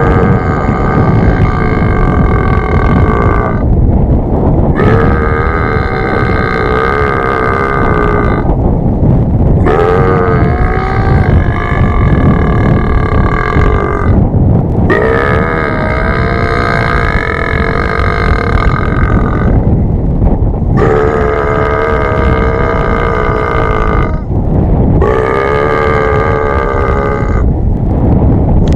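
A person making long, drawn-out burps to call cattle: about six in a row, each lasting three to four seconds, with short gaps between them, over a steady low rumble.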